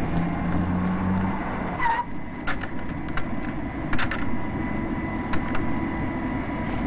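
A Mini car's engine runs for the first second or so over a steady rushing noise with a high, even whine. From about two seconds in come scattered clanks and knocks.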